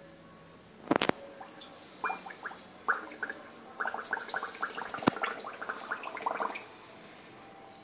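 Bubbles blown through a drinking straw into a cat's water bowl: a fast, irregular run of bubbling gurgles from about two seconds in until near the end. A sharp knock comes about a second in, and a click about five seconds in.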